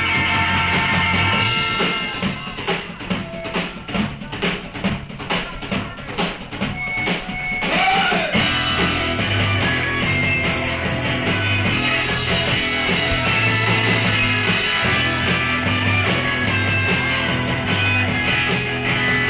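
Live rock band playing: two electric guitars, bass guitar and drum kit. About two seconds in the band drops to a sparse break of separate drum hits and thinner guitar. It comes back in at full strength around eight seconds.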